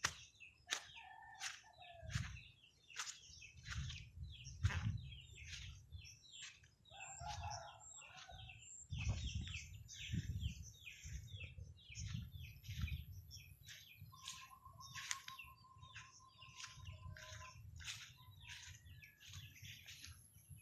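Birds chirping, a dense run of short high calls one after another, with a low rumble underneath.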